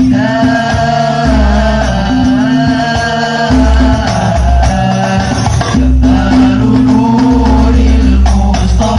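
Banjari hadrah performance: a solo voice sings a long, wavering sholawat melody over loud, rhythmic terbang frame drums.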